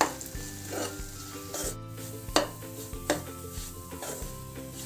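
A metal spoon stirring and scraping semolina as it roasts in ghee in a non-stick kadhai, with a scrape about every three quarters of a second over a soft sizzle.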